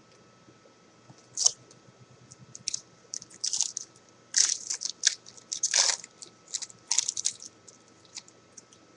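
Foil trading-card pack wrappers crinkling and cards being handled in an irregular series of short crackly rustles, densest in the middle.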